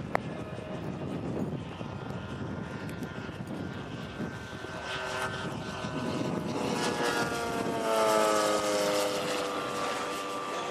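Engine and propeller of a large radio-controlled Strega Mustang Reno racer model flying past: the drone builds to its loudest about eight seconds in, its pitch sliding down as the model goes by. A single sharp click right at the start.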